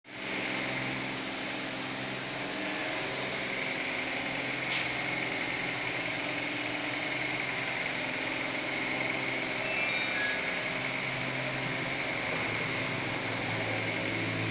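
Steady mechanical hum with an even airy hiss, like a running appliance motor, with a single short click about five seconds in.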